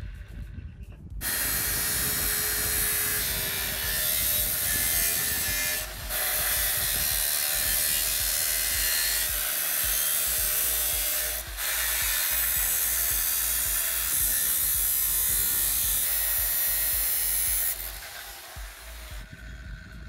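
A power tool cutting through the metal case of a diesel particulate filter: a loud, steady, hissing cut that starts about a second in, breaks off twice for a moment, and stops a couple of seconds before the end.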